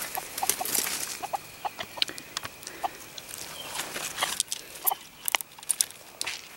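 Junglefowl clucking: a series of short, scattered clucking notes mixed with sharp clicks, used as a lure in wild chicken hunting.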